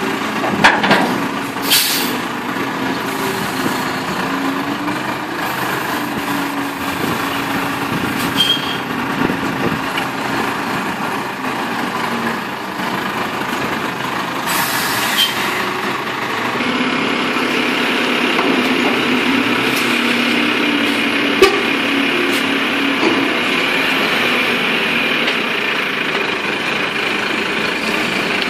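Heavy lorry's diesel engine running, with a few short hisses of released air and several sharp knocks. About halfway through the engine sound grows louder and fuller.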